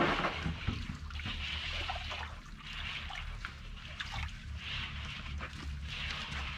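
Thick liquid pottery glaze sloshing in a large basin as a potter stirs it by hand to mix it, in soft repeated swishes.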